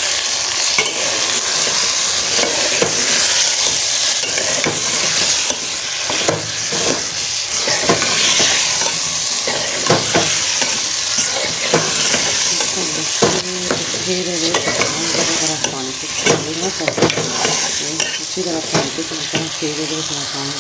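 Diced potatoes and tinda (round gourd) frying in masala in a metal pot, sizzling steadily, while a metal spoon stirs them and scrapes and knocks against the pot with repeated short clicks.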